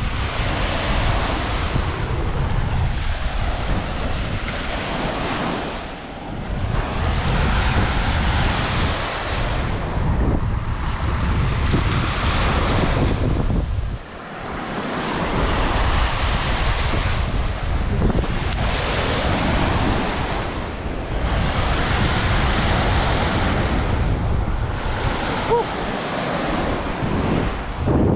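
Small waves washing up and running back on a sand beach, the wash swelling and easing every few seconds, with wind buffeting the microphone.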